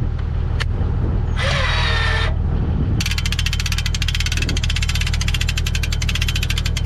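Toyota Land Cruiser engine idling steadily. A short noisy burst comes about a second and a half in, and from about three seconds in a fast, even, high ticking rattle runs over the idle.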